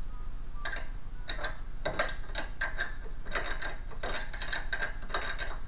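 Ratcheting clicks in short, quick runs with brief pauses between them, starting under a second in, as a fastener is tightened by hand.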